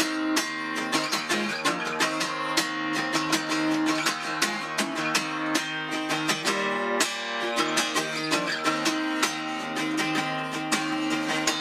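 Background music led by a strummed acoustic guitar, with quick, regular strokes.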